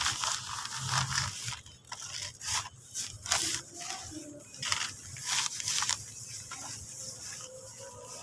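A hand scraping damp, gritty sand-and-cement mix across a plastic sheet in a series of short crunchy strokes.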